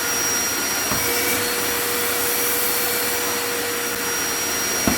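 Wet and dry vacuum cleaner running steadily, its motor giving a constant hiss with a faint steady whine. A light knock about a second in and another near the end.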